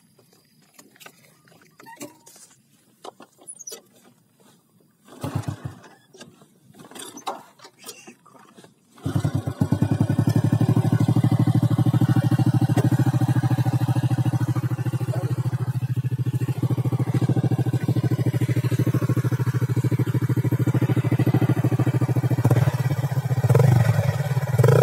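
Honda EX5 single-cylinder four-stroke engine, breathing through an Apido big-bore aftermarket exhaust, starts about nine seconds in after a few faint clicks and knocks, then idles steadily with an even pulse. Near the end there is a brief rise in revs.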